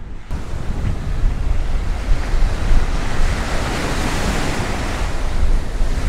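Small waves breaking and washing up a sandy beach, with wind buffeting the microphone. The surf sound stops suddenly at the end.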